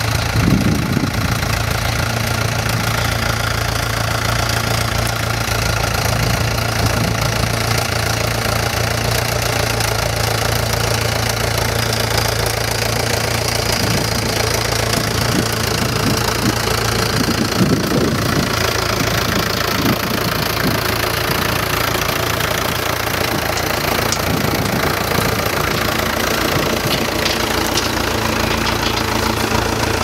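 Vintage Fordson Major tractor's four-cylinder engine running steadily under load as it pulls a plough through stubble.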